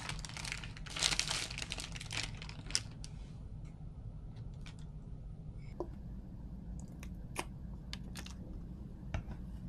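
Paper burger wrapper crinkling as it is unfolded by hand for about the first two and a half seconds, followed by scattered light clicks and taps.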